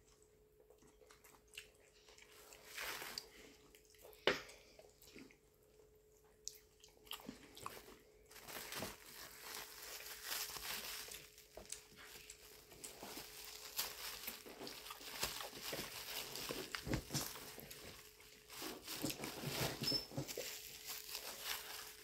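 Close-miked eating sounds: chewing and mouth smacking while eating fufu with vegetable soup by hand. Sparse clicks at first, then a denser run of wet clicks and smacks from about eight seconds in.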